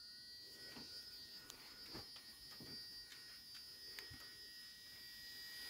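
Ferrex cordless rotary tool with a felt buffing tip running free at speed: a faint, steady high-pitched whine that cuts off suddenly near the end as it is switched off.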